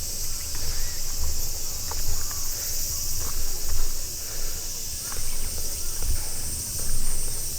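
Steady high-pitched insect chorus, with a low uneven rumble underneath and a few faint short chirps.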